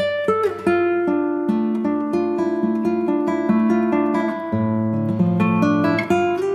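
Instrumental music: a plucked acoustic guitar plays a melody over chords, with a few notes sliding in pitch and a lower bass line coming in partway through.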